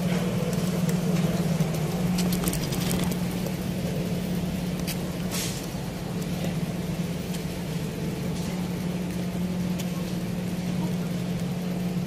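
A running machine giving a steady low hum at one pitch, with a few faint clicks and rustles in the first half.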